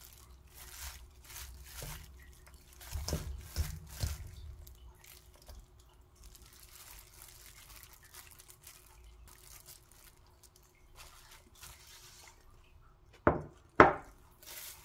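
Wet, dressed green laver and shredded radish salad being handled with a plastic-gloved hand: soft squishing and small clicks, with a few louder knocks about three seconds in. Near the end come two sharp knocks, the plate and bowl being set down on the wooden table.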